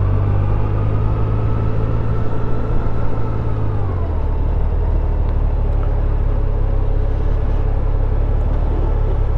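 Motorcycle engine running at low speed, its note dropping about four seconds in and then holding steady.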